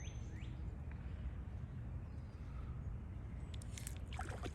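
Quiet outdoor ambience with a steady low rumble of wind on the microphone, a faint bird chirp near the start and a few soft clicks near the end.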